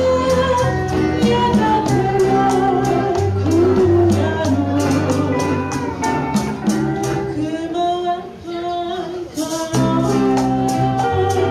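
Small live band playing a song, with a woman singing the melody over guitar, low held notes, and an even beat of shaken maracas and hand-played congas. The music drops briefly quieter about eight seconds in, then picks up again.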